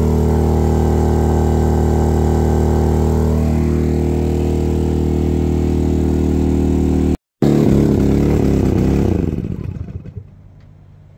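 Maxpeedingrods MXR3500 inverter generator's engine running steadily under heavy load. About seven seconds in, after a split-second dropout, it stumbles and winds down to a stop: the generator is running out of fuel at the end of its runtime test.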